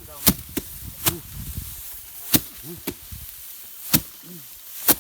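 Sharp, crisp snaps at an uneven pace, about seven in five seconds, from rice being harvested by hand. Brief voice sounds come in between.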